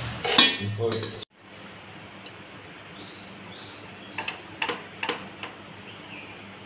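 Metal ladle clinking and scraping against a non-stick pot while cooked rice is spread in it, with a few sharp clinks between about four and five and a half seconds in. A louder burst of noise in the first second cuts off suddenly.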